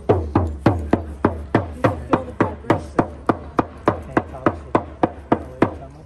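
Hand-held frame drum struck with a padded beater in a steady, even beat of about three to four strokes a second, each stroke leaving a deep ringing boom. The drumming stops near the end.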